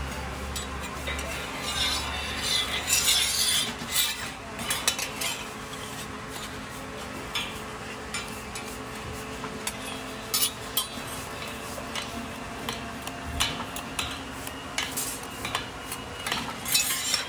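Flat metal spatulas scraping and clinking against a round cast-iron griddle pan as a thick pancake is folded over and cut. The scrapes and clicks come in irregular clusters, heaviest in the first few seconds and again near the end.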